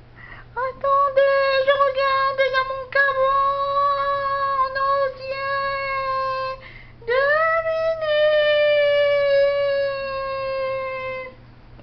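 High-pitched voice singing wordless long held notes: one steady note for about six seconds, then after a short break a note that swoops up and slowly sinks over about four seconds.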